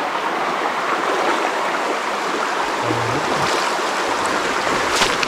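Creek water running steadily, a constant rushing hiss.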